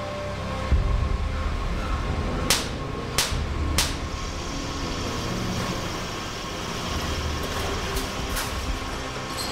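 Machinery running with a steady low rumble, and three sharp metallic clanks in quick succession a few seconds in, then two fainter ones near the end.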